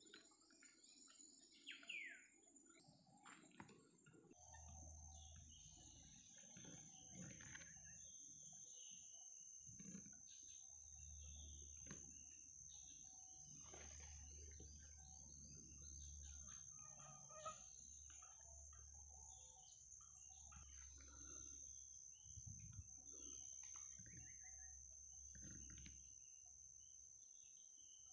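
Faint forest ambience: a steady high-pitched insect drone with scattered bird chirps, a low rumble underneath, and a couple of brief faint taps.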